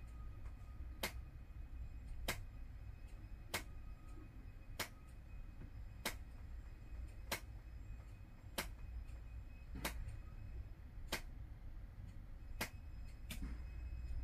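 Slow, even ticking: a sharp click about once every second and a quarter, over a low steady hum.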